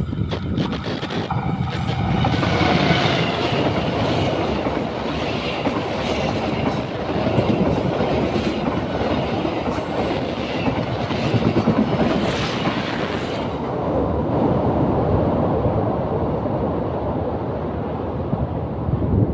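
A passenger train passing close by, its wheels running steadily on the rails, with faint high squealing tones that fade out about two-thirds of the way through.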